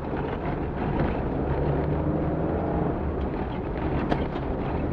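Off-road rally car's engine running as it drives over rough ground, with a sharp knock about four seconds in.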